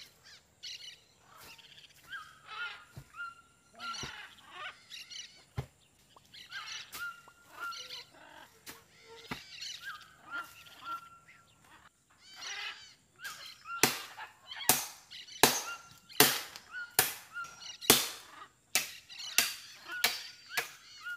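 Short, pitched bird calls repeat through the first half. Past the middle a run of loud, sharp strikes begins, a little more than one a second, from the work of setting up a forest camp.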